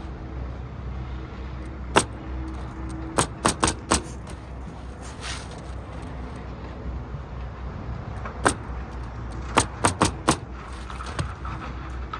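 Pneumatic roofing nailer fastening asphalt shingles, firing sharp single shots and quick groups of about four, over a steady low hum.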